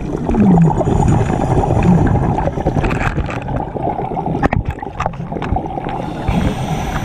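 Scuba diver's exhaled regulator bubbles gurgling and crackling, heard through an underwater camera housing, with a few sharp clicks about four to five seconds in.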